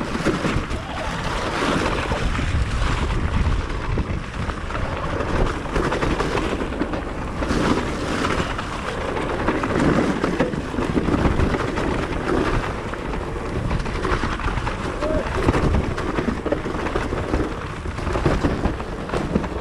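Wind buffeting the microphone with a steady low rumble, mixed with tyre and frame rattle from an electric mountain bike being ridden down a trail.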